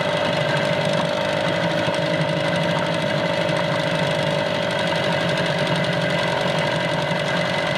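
Small outboard motor idling steadily at a raised idle speed while its idle mixture screw is adjusted to cure stalling at idle.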